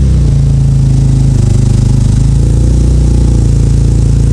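Turbocharged 3.5-litre V6 of an Acura TL Type-S idling through a freshly fitted RV6 true-dual cat-back exhaust, just after a half-warm start. The idle settles down slightly in pitch right at first, then runs steady and louder than stock.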